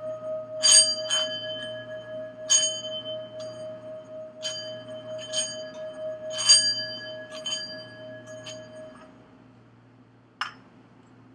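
A singing bowl rings with a steady, sustained tone. About eight light, bright bell strikes ring over it, then the bowl's tone fades out about nine seconds in. A short click follows near the end.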